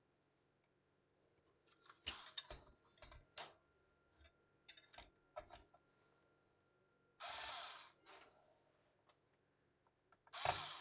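Scattered light clicks and taps of computer parts being handled and fitted together, starting about two seconds in, with a short scraping rustle about seven seconds in and another near the end.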